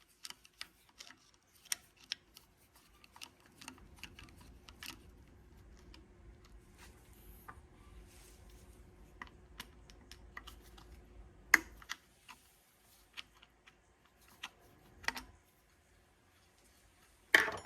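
Scattered light clicks and taps of small metal parts and hand tools being handled on a diesel injection pump. A faint low hum comes in about four seconds in and stops about twelve seconds in. There is a sharp click about halfway through and a louder clack near the end.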